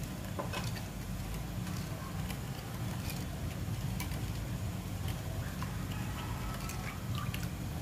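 A spoon stirring a bowl of nước mắm (Vietnamese fish-sauce dipping sauce) with chopped chili and garlic, the spoon now and then clicking lightly against the bowl, over a steady low background hum.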